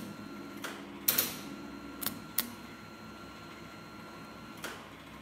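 An Elektra Beckum MIG/MAG welder running gasless flux-core wire, striking the arc in about four short crackling bursts, the loudest about a second in, with a faint steady whine in between that stops near the end. The wire keeps burning fast to the workpiece, which the welder suspects is too much power for the setting.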